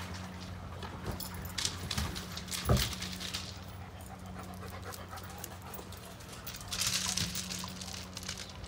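A dog panting, with scattered knocks and one heavier thump about three seconds in as it climbs out of the water-filled stock tank.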